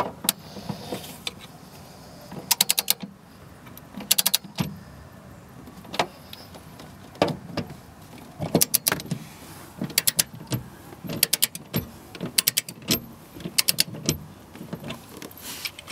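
Hand ratchet tightening car seat bolts: short runs of rapid clicking from the ratchet as the handle is swung back, about half a dozen runs with single clicks between.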